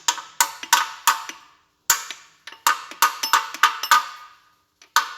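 Steel gearbox gears and mainshaft knocking and clinking against each other as they are handled and slid about: a quick run of sharp metallic clinks, each ringing briefly, with a short pause a little under two seconds in.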